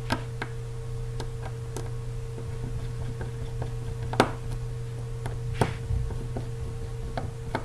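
Small screwdriver and fingertips ticking and tapping on the tiny screws and metal flex-connector plate of an iPhone 4s as its four screws are taken out: a scattering of sharp clicks, the loudest about four seconds in, over a steady low hum.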